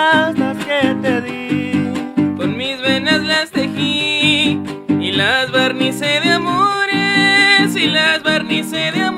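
Son huasteco played by a string trio: a violin melody with slides and vibrato over the quick, steady strummed rhythm of jarana huasteca and huapanguera, with no singing.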